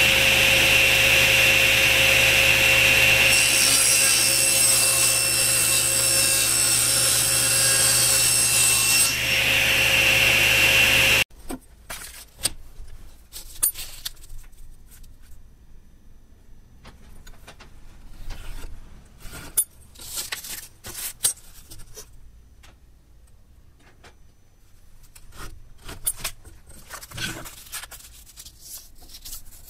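Table saw running and cutting plywood, a steady whine with a harsher, hissier cutting sound between about 3 and 9 seconds in. It cuts off abruptly after about 11 seconds, leaving faint rustling of paper and light taps of a steel ruler and hands on a wooden bench.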